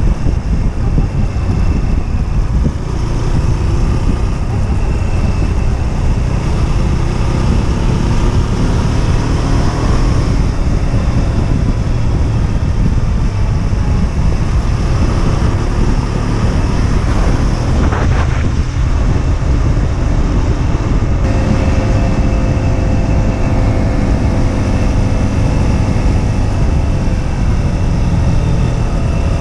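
Husqvarna Svartpilen 125's single-cylinder engine running under way, heard onboard, its pitch rising and falling as the throttle changes, with heavy wind rush on the microphone. About two-thirds of the way through the sound changes abruptly and the engine note holds steadier.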